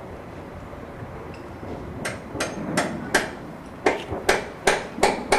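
Hammer blows on the heavy timbers of a king post roof truss being taken apart: after about two seconds of low background, a steady run of sharp strikes, about three a second, with a short pause midway.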